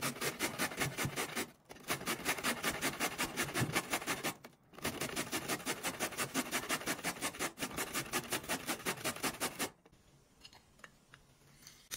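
Rapid, even scraping strokes of kitchen hand work on food, about five a second, in three runs broken by short pauses, stopping near the end and leaving a few small clicks.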